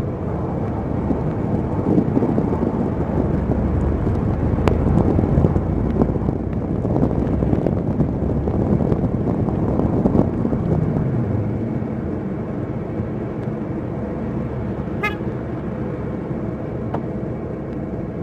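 A car driving, with steady road and engine noise that swells through the middle and eases off in the last third. About fifteen seconds in there is one short, sharp click.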